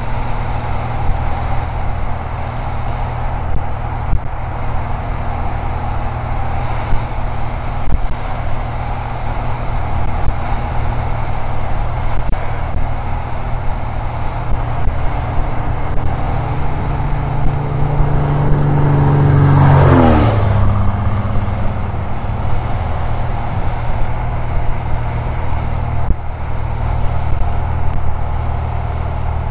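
Cessna 180's six-cylinder Continental O-470 engine and propeller running steadily at high power on a low, high-speed pass. About twenty seconds in, the sound swells and then drops sharply in pitch as the plane rushes past.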